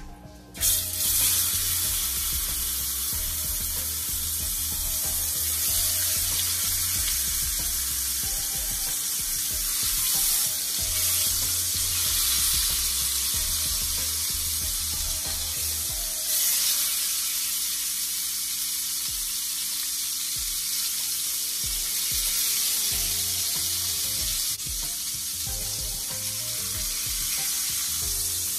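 Salmon pieces sizzling as they sear in hot oil in a stainless steel pot; the sizzle starts suddenly about half a second in as the first piece goes into the oil, then holds steady.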